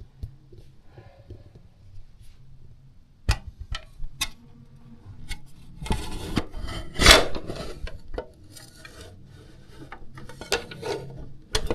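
Objects being handled and set down on a hard surface: a few sharp knocks, then a spell of scraping and rubbing with one loud knock in the middle, and more knocks near the end.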